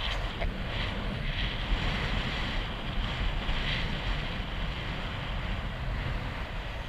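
Wind rushing over the microphone, mixed with the splashing of a horse's hooves through shallow water on wet sand.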